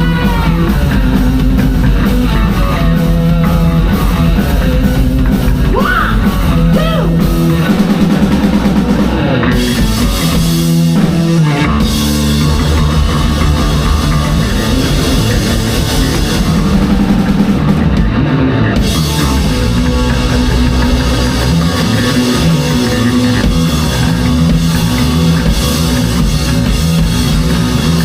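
Live rock band playing loudly, electric guitar over a drum kit.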